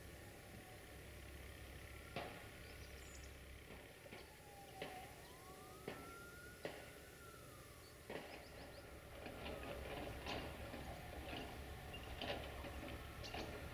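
Faint, distant siren wailing, its pitch sliding slowly down and up over several seconds. Scattered short clicks and ticks are heard too, more often in the second half.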